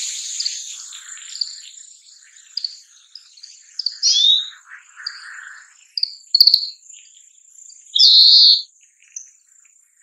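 Oriental greenfinch singing: a string of short, high twittering notes ('kiriri'), then a loud, drawn-out buzzy 'beeen' about eight seconds in.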